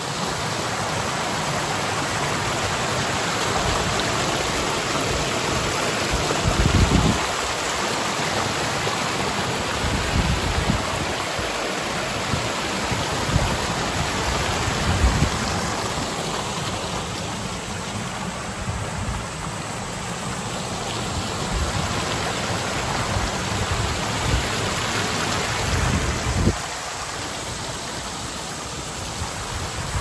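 Steady rushing roar of a large waterfall, Awamata Falls on the Yoro River, with a few low thumps, the loudest about a quarter of the way in and near the end.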